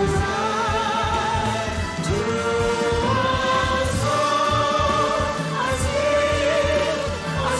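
Background music: a song with voices holding long notes with vibrato over a steady low accompaniment.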